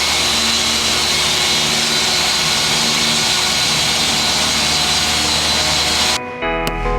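A steady, loud whooshing machine noise with a faint high whine, cut off abruptly about six seconds in by music with a regular beat.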